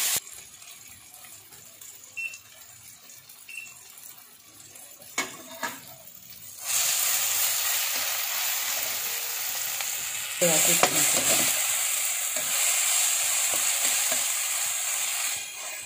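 Onion-tomato masala sizzling in hot oil in an iron kadhai while a spatula stirs and scrapes it. After a quieter stretch with a couple of light spatula knocks, a loud steady sizzle starts suddenly a little before halfway and carries on to the end, as the tomatoes fry down in the oil.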